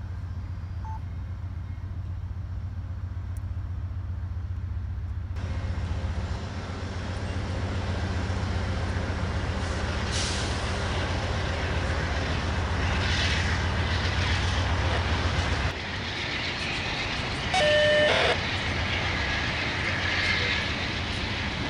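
Diesel freight locomotives working under load, a steady low engine drone with a broad rumble of the moving train that builds from about five seconds in. A short horn blast comes about eighteen seconds in and is the loudest sound.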